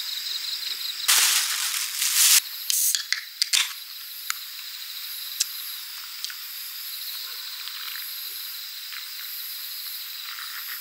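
Insects chirping steadily in a high, pulsing pattern. About a second in comes a loud rustle lasting about a second, followed by a few light clicks.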